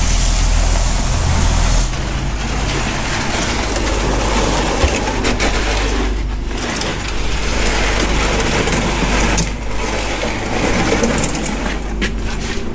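Water from a deck hose splashing onto a boat deck for about two seconds, over a steady low engine hum that carries on after the splashing stops.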